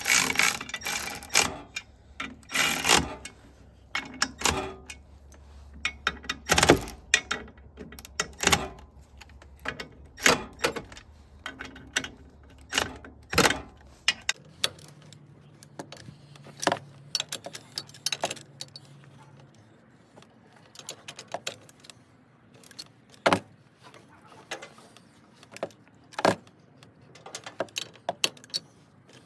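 Irregular metallic clinks and knocks of hand tools and metal parts being handled, several a second at first and sparser from about halfway.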